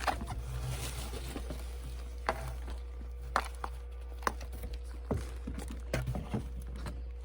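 Scattered light clicks and taps of small items and packaging being handled, over a steady low electrical hum.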